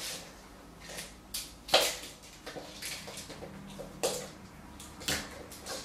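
Kitten batting a small ball toy against a wall and across a laminate floor: a handful of irregular light knocks and taps, the sharpest about two seconds in and again about four seconds in.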